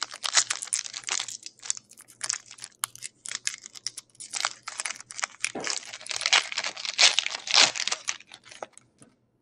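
Foil trading-card pack wrapper being crinkled and torn open by hand: a dense run of crackles and rips that stops shortly before the end.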